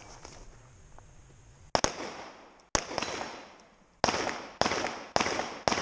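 9mm Glock pistol shots, each followed by a short echo that dies away. A fast pair comes just under two seconds in and another shot a second later, then four more at about half-second spacing.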